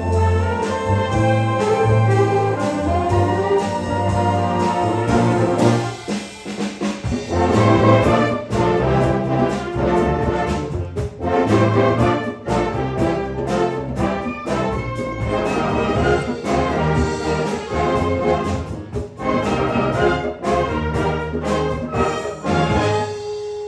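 Concert band playing: saxophones and brass over a strong bass line, punctuated by sharp accented hits. Near the end the full band drops out, leaving one held note.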